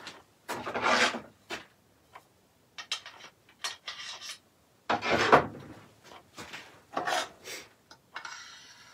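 Handling noises from a metal sharpening jig as a skew chisel is slid into its clamp: several short scraping rubs with small clicks between them, the loudest about five seconds in.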